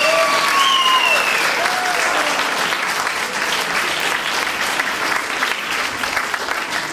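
Audience applauding, with a couple of falling whoops in the first second or so.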